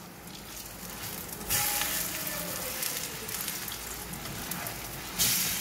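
Vegetable fritters sizzling in shallow oil in a nonstick frying pan. The sizzle flares up sharply about a second and a half in, and again near the end, as fritters are flipped raw side down into the hot oil.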